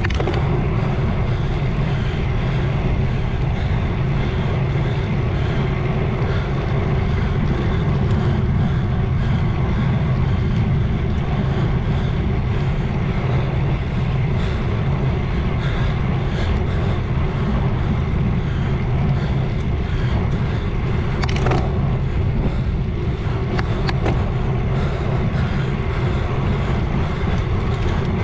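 Steady rushing wind rumble on the microphone of a bicycle descending fast, strongest in the low end, with a couple of brief sharp clicks late on.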